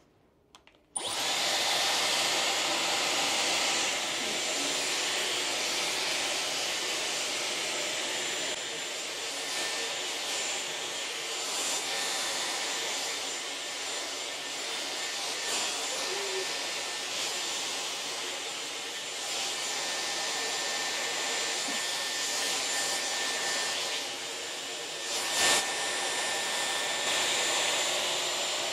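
Dyson hair dryer switched on about a second in and blowing steadily, a rush of air with a thin high whine over it. There is a short louder burst near the end.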